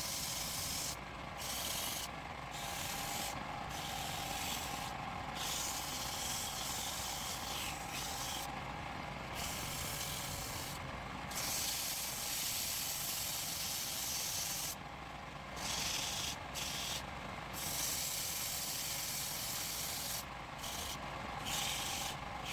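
Wood lathe running while a tool is held against the spinning wood, making a steady hissing scrape. The scrape breaks off briefly every second or so as the contact is lifted and set back.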